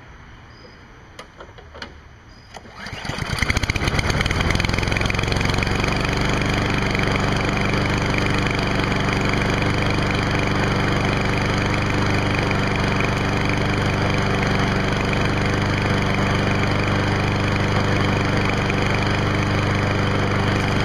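A Kohler Courage XT-7 single-cylinder lawn mower engine starting by its repaired recoil pull starter. A couple of light clicks come first. About three seconds in, the engine catches and comes up to speed, then runs steadily.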